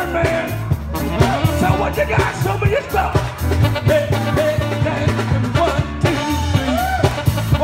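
Live soul band playing, a lead singer's voice gliding over a steady drum beat and heavy bass.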